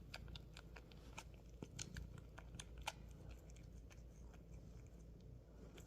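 Tabby kitten licking his toe: faint, irregular small wet clicks, several a second, thinning out toward the end.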